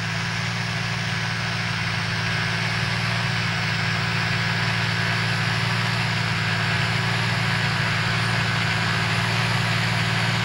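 John Deere 8200 tractor's six-cylinder diesel running steadily as it works across the field with a mounted plough, a constant low engine note that slowly grows a little louder.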